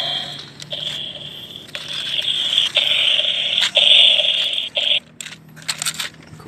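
Battery-operated walking toy dinosaur playing a tinny, harsh electronic sound from its small speaker, broken by clicks about once a second. The sound cuts off about five seconds in, and a few sharp clicks and scrapes follow.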